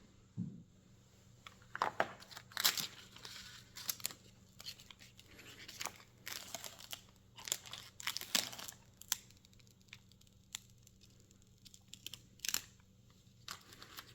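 Packaging of a table tennis rubber being handled and opened by hand: irregular rustling in short bursts, loudest about two to three seconds in and again after eight seconds.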